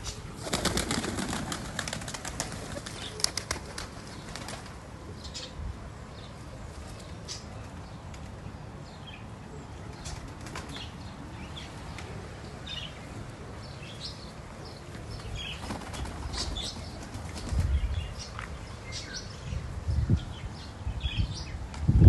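A flock of Iraqi fancy pigeons flapping their wings: a dense burst of wing beats in the first two seconds, then scattered short flutters, with a few low coos near the end.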